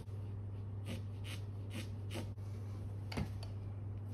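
Graphite pencil scratching on primed canvas: a handful of short, separate strokes over a steady low hum, with a sharper tap a little past three seconds in.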